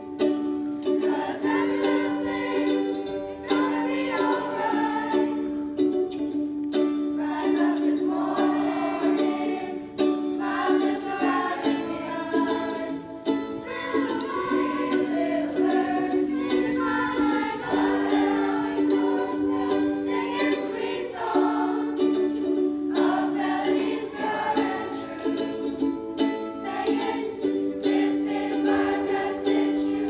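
Youth chorus singing with an instrumental accompaniment, over steady held low notes that break off only briefly.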